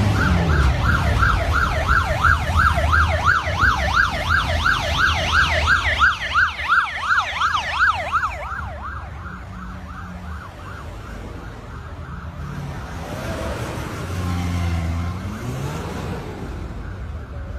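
Police siren in fast yelp mode, rising and falling about four times a second, which cuts off abruptly about eight seconds in. After that, quieter engine noise of convoy vehicles driving past swells briefly near the end.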